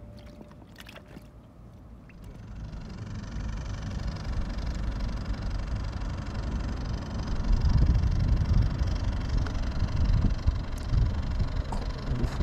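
An engine running steadily, building up over the first few seconds and loudest a little past the middle, with a heavy low rumble under it.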